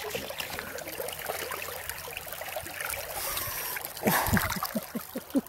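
Shallow creek water trickling over gravel; about four seconds in, a hand splashes into the water and lifts out, followed by a quick run of small watery plinks.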